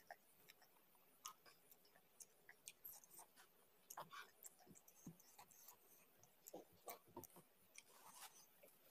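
Faint close-up eating sounds of a person eating rice and chicken curry by hand: wet mouth smacks and chewing, and fingers squishing rice on the plate, as scattered soft clicks.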